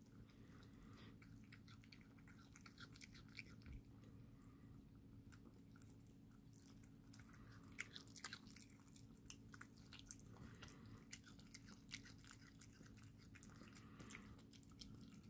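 Kittens chewing and biting raw liver: faint, irregular clicks and smacks of eating, over a low steady hum.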